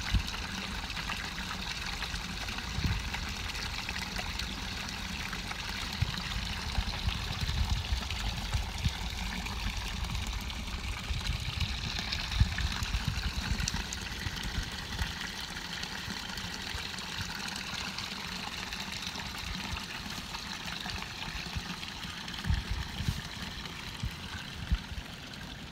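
Spring water pouring and trickling steadily from a pipe outlet, with irregular low thumps on the microphone.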